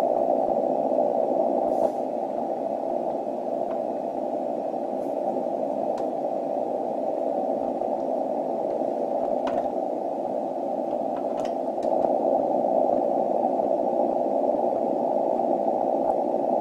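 Steady hiss of 160-metre band noise from a shortwave receiver, heard through a narrow audio filter. It drops a little about two seconds in and comes back up about twelve seconds in, with a few faint clicks. The rise is common-mode noise picked up on a rotator control cable as it is connected.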